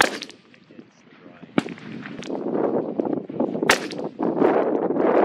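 Target rifle shots cracking out on a rifle range: a sharp shot right at the start, another about one and a half seconds in, a fainter one shortly after, and a loud one near four seconds in. Gusting wind noise rushes underneath.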